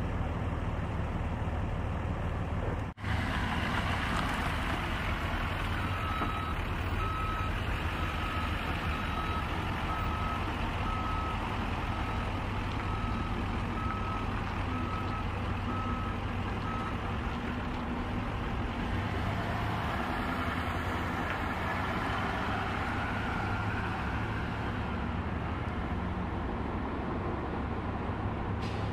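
Steady rumble of idling fire trucks, with a vehicle's reversing alarm beeping evenly about once a second for roughly ten seconds in the first half. The sound drops out briefly about three seconds in.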